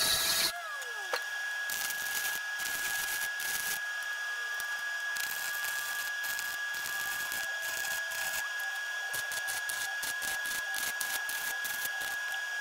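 Arc welding on steel bed-frame tubing: an irregular crackling in short runs with brief pauses, with a steady high-pitched tone underneath. In the first second a power tool stops and its pitch falls as it spins down.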